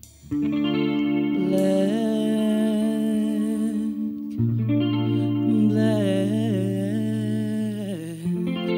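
Live band music: a woman singing long, wavering notes over electric guitar, bass guitar and drums. The music drops out briefly at the very start and comes back in a moment later.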